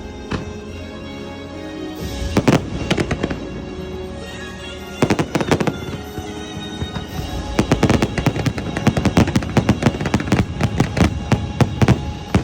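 Fireworks bursting over the show's orchestral soundtrack, with short clusters of bangs a couple of seconds in and about five seconds in, then a dense run of rapid bangs through the second half.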